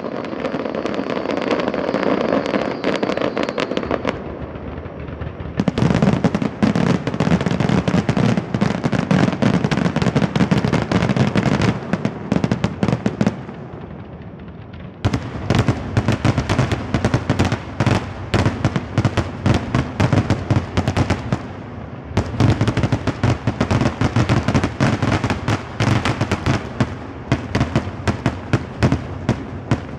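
Fireworks grand finale: a dense barrage of aerial shells going off in rapid bangs and crackle. It comes in waves, with brief lulls about four and thirteen seconds in.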